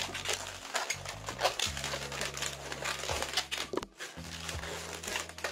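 Long latex modelling balloons rubbing against each other in the hands as they are twisted and hooked together, a run of short irregular rubbing noises. Background music plays underneath.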